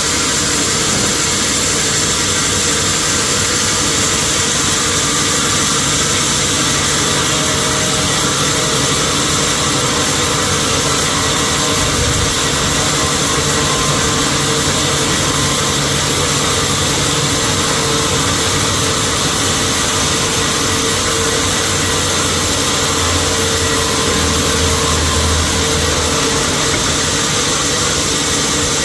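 Sawmill machinery running steadily, a continuous mechanical hum over a steady hiss, with a deeper hum swelling for a few seconds near the end.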